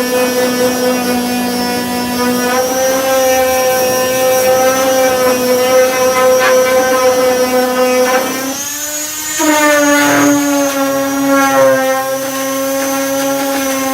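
Power sander fitted with a 240-grit disc running steadily, sanding body filler, with a steady motor whine. The whine dips and changes pitch for about a second around nine seconds in, then settles again.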